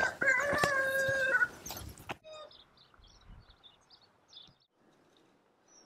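A rooster crowing once: a single long held call of about a second and a half. Faint, scattered chirps of small birds follow.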